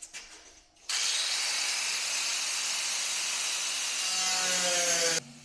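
Cut-off tool (zip wheel) running and cutting sheet-metal body panel: a loud, steady hiss-like grind that starts abruptly about a second in and stops abruptly about four seconds later, with falling tones near the end.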